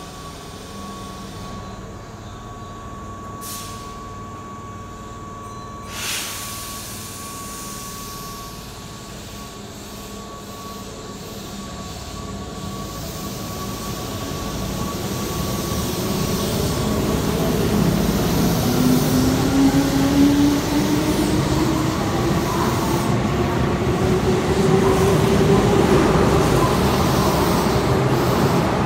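Keihan 2200-series electric train pulling out of an underground station and accelerating past, growing steadily louder. A rising motor whine climbs through the second half. There is a single knock about six seconds in.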